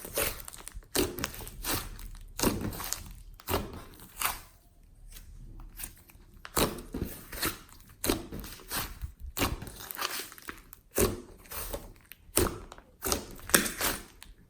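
Glossy slime with clay mixed in being squeezed and stretched by hand, giving irregular sticky clicks and pops, a few a second, with a short quieter lull partway through.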